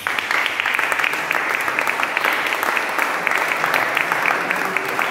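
Audience applauding: dense clapping breaks out suddenly and keeps going steadily.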